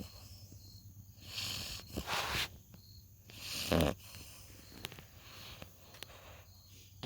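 Puppy snoring in her sleep: a few noisy breaths about a second apart, the loudest near the middle with a deeper snore, then softer breathing.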